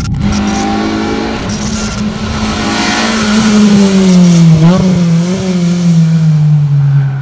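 Car engine running at high, fairly steady revs over a rushing noise. Its pitch wavers and dips about two-thirds of the way through, then falls away near the end.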